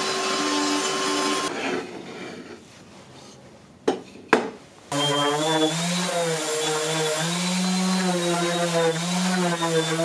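Table-mounted router spinning a bearing-guided profile bit through the edge of a wooden plate, winding down about a second and a half in. Two sharp clicks come near four seconds, then an electric random orbit sander runs on the wooden plate, its hum wavering in pitch.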